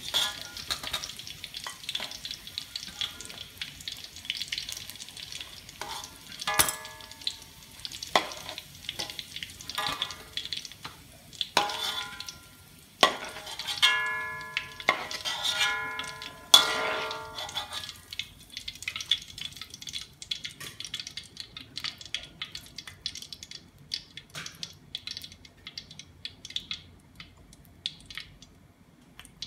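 Hot oil sizzling and crackling in a metal wok as pieces of fried chicken are lifted out with a metal spatula. The spatula strikes and scrapes the wok several times in the middle stretch, each strike ringing briefly. Near the end only the oil's quieter sizzle is left.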